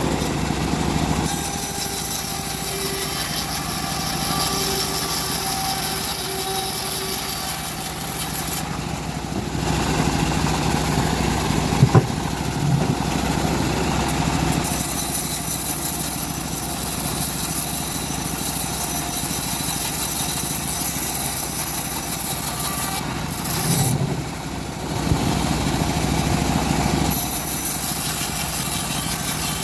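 Engine-driven home-built bandsaw mill running steadily. Its high hiss drops away briefly twice, about nine seconds in and again near twenty-four seconds, and there is a single sharp knock about twelve seconds in.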